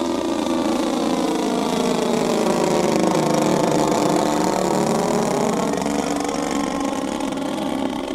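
Twin O.S. gasoline engines of a radio-controlled scale Cessna 310 running together. The pitch sags through the middle and climbs again, loudest about three seconds in.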